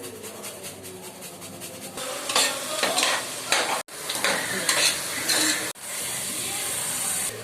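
Several short sound clips cut together: quick scraping strokes, then a steady hiss.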